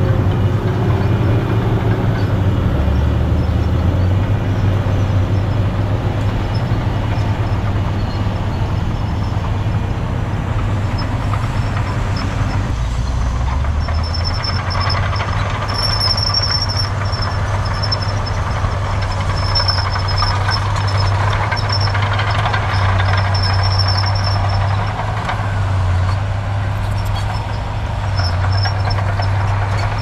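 Heavy diesel construction machinery running steadily with a deep engine drone. A thin high-pitched whine comes and goes through the second half.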